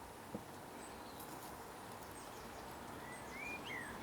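Quiet steady background hiss with one small click just after the start, then a few short bird chirps, rising and falling, near the end.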